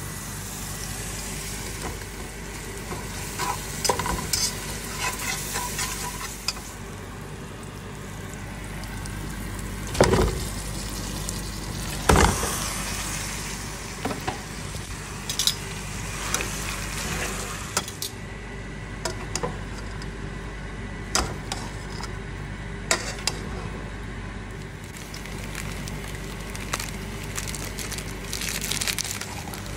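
Ground beef and fried onions sizzling in a steel pot, with utensil clicks and scrapes and two loud knocks about ten and twelve seconds in, over a steady low hum.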